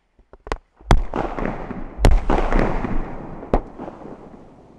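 A quick string of explosive bangs: a few small pops, then three loud blasts about one, two and three and a half seconds in, with crackling between them that dies away after the last blast.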